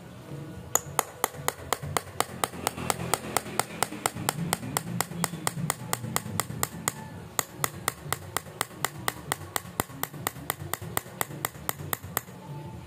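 Rapid, evenly spaced sharp metallic clicks, about five a second, from a flat steel tool working at a power steering worm housing. The clicks pause briefly past the middle and stop shortly before the end.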